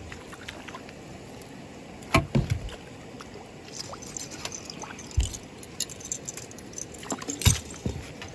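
Hooked rainbow trout splashing and thrashing at the water's surface as it is played toward the net, with several sudden dull thumps about two seconds in, five seconds in and near the end, and scattered light clicks.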